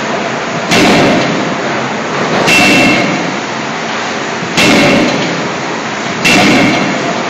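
CNC hydraulic forging hammer striking red-hot steel scissor blanks. Four heavy blows land about two seconds apart, each with a short metallic ring, over steady loud machinery noise.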